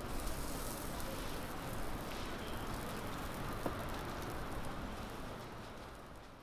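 Steady background noise of a market stall, an even hiss with no clear single source, with one small tick partway through; it fades out near the end.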